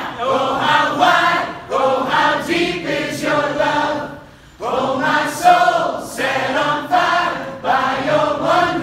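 Church choir singing a worship hymn refrain in long phrases, with a short break about four seconds in.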